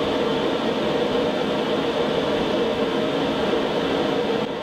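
A steady machine drone, even and unbroken, dipping slightly near the end.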